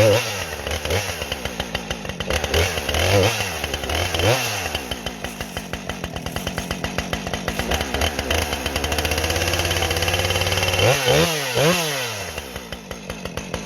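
Two-stroke chainsaw warming up just after starting: idling with several short throttle blips in the first few seconds, a steadier run through the middle, and two more quick revs about eleven seconds in before it settles back to idle.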